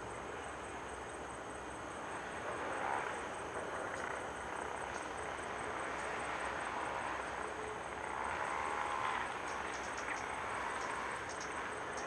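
Steady outdoor background: a broad hiss with a thin, steady high insect tone throughout. Faint rising-and-falling sounds come about three seconds in and again around eight to nine seconds, and a few short high ticks come near the end.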